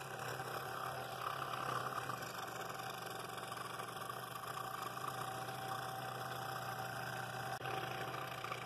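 Scroll saw running steadily, its blade cutting through a half-inch poplar bowl blank.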